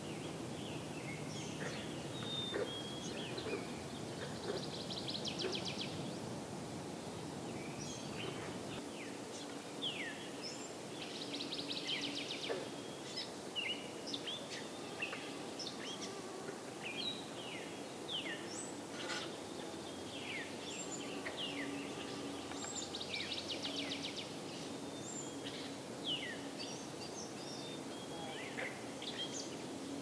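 Spring woodland birdsong: several birds calling and singing at once in short chirps and slurred notes, with a rapid dry trill heard three times. A steady low background noise sits under the birds.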